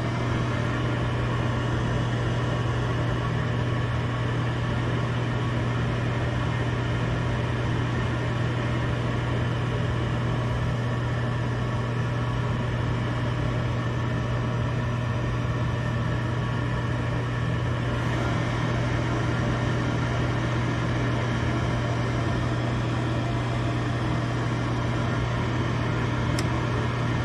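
Gas furnace draft inducer motor running steadily with a strong low hum, in the furnace's start-up sequence before the igniter comes on.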